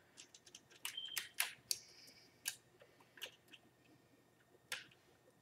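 Irregular small plastic clicks and snaps of Lego gears being pulled off their axles by hand.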